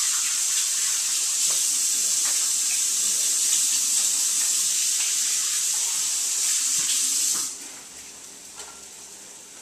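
Kitchen tap running steadily as hands are rinsed under it, shut off about seven and a half seconds in.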